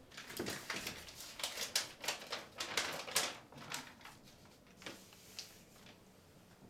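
A sheet of paper rustling and crinkling as it is handled against a whiteboard: a quick, irregular run of scratchy rustles over the first few seconds, then a few sparse ones.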